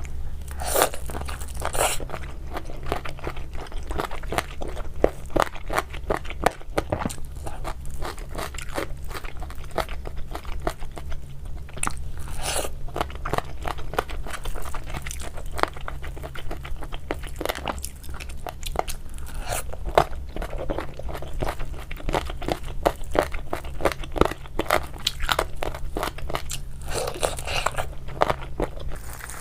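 Close-miked chewing and crunching of crisp food: dense, irregular crunches that keep going throughout.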